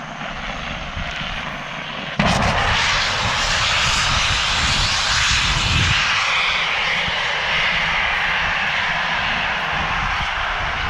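A sudden blast of compressed air bursting out of the open end of a slurry pipe about two seconds in, as the cleaning sponge is blown through, followed by a loud steady rush of air that slowly eases off.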